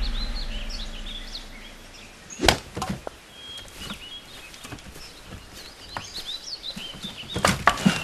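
Birds chirping, with one sharp wooden knock about two and a half seconds in and a quick cluster of wooden clatters near the end as loose planks are gathered up from a pile.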